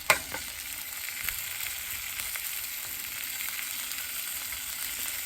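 Food sizzling steadily in a frying pan over a campfire, with one sharp metallic clack just at the start.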